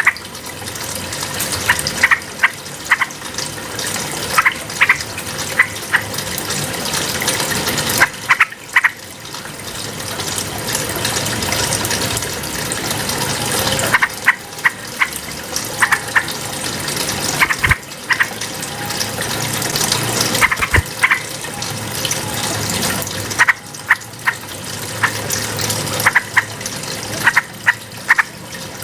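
Yellow-vented bulbul calling in clusters of short, sharp notes over a steady rush of flowing water. The water noise builds and drops back abruptly several times.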